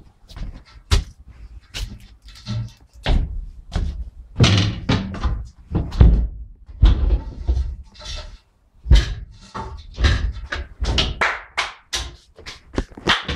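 Irregular knocks and thuds of footsteps and bumps on the steel floor plates and metal panels inside a diesel locomotive's engine room.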